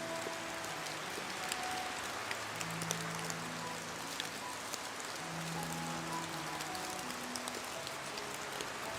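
Steady heavy rain falling, with sharp drops ticking through the hiss. Soft, slow background music of long held notes plays quietly underneath.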